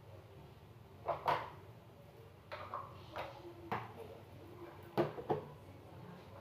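Small plastic kitchen containers and lids being handled and set down on a counter: about seven light knocks and clacks spread irregularly, two of them louder, about a second in and about five seconds in.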